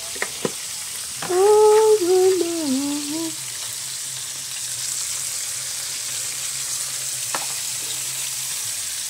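Small whole fish frying in hot oil: a steady sizzling hiss, with a few sharp clicks of metal tongs. About a second in, a voice hums a short wavering phrase for about two seconds.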